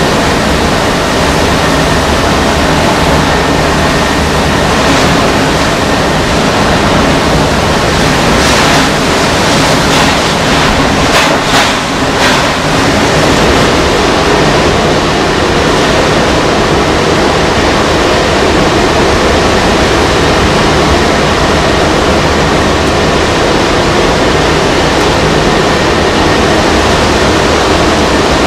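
Loud, steady rushing noise of hurricane wind and driving rain, turning into the roar of heavy storm surf breaking on the beach. A few brief sharp flickers in the noise come around the middle.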